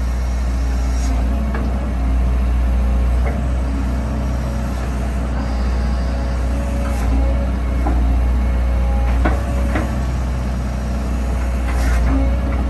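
Sumitomo SH130 hydraulic excavator's diesel engine running under load while the boom, arm and bucket are worked, a deep steady rumble with a steady hum over it. Several sharp knocks and clicks break in along the way.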